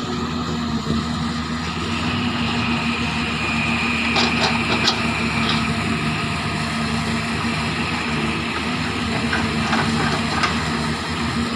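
Zoomlion ZE370E hydraulic excavator's diesel engine running steadily close by as the machine swings round, with a high whine for a few seconds early on and a few light clicks about four to five seconds in.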